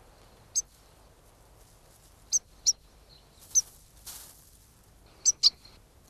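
Shrike mimicking the European goldfinch's contact call: short, high single chirps spaced a second or more apart, six in all, the last two a quick pair.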